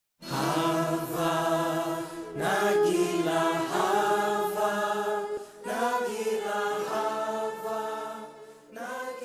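Chanted vocal music: sung phrases held for a couple of seconds each, with short breaks between them, starting a moment in.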